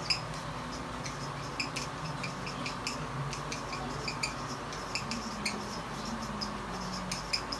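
Marker pen writing on a plastic-covered chart, squeaking in many short, irregular high chirps.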